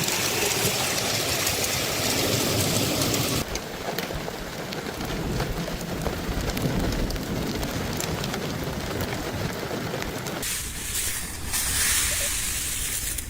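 Hail and heavy rain pelting down: a dense hiss crowded with small, quick hits. The sound shifts abruptly twice, about three and a half and ten and a half seconds in.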